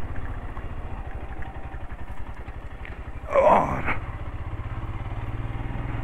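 Motorcycle engine running at low revs, a steady low rumble.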